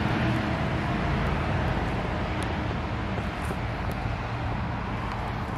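Road traffic noise: a steady rumble of passing vehicles that slowly fades.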